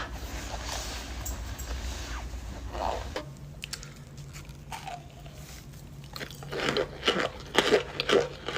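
Person biting and chewing hard blocks of cornstarch, giving a run of sharp crunches about three a second in the last two seconds. Before that there is a low steady hum.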